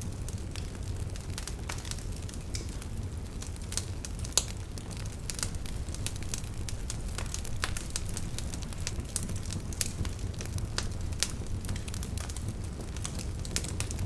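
Fire crackling: irregular sharp pops over a steady low rumble, with one louder pop about four seconds in.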